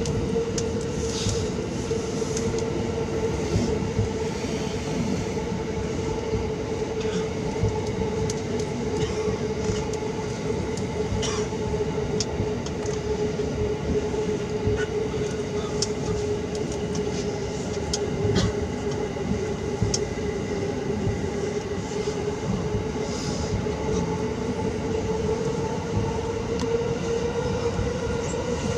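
E353 series limited express electric train running at speed, heard from inside a passenger car: a steady rumble of wheels on rail with a steady hum and scattered clicks. The hum rises in pitch near the end.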